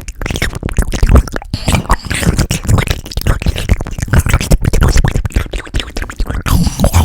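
A person imitating a pig eating with mouth and voice close to the microphone: a dense, rapid run of wet mouth clicks and smacks over low grunting pulses, loud throughout.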